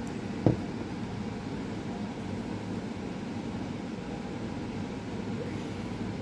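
Steady low hum of room background noise, with one sharp click about half a second in.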